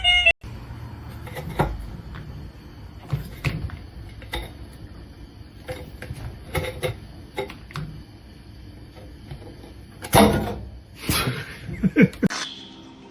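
Scattered knocks and clatters in a small room, with a louder burst of knocking about ten seconds in and a few more sharp knocks near the end.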